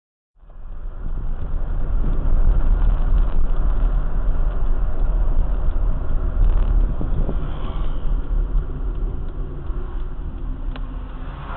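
A loud, steady low rumble with a noisy haze above it, starting abruptly half a second in, as recorded through an SQ8 mini camera's small built-in microphone, which cuts off everything above about 4 kHz.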